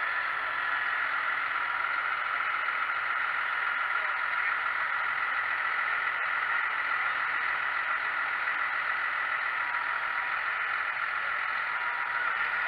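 Massey Ferguson tractor running steadily under load as it pulls a reversible plough through the soil, an even drone with no change in pace.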